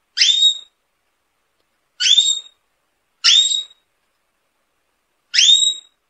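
Domestic canary giving four short whistled calls, each a quick upward sweep that levels off into a clear high note, spaced a second or two apart.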